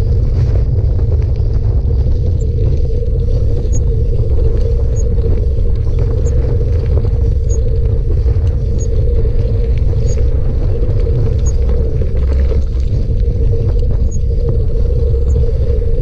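Wind rumbling steadily on the microphone of a camera riding along on a bicycle, with a steady hum under it and a faint light tick about every second and a quarter.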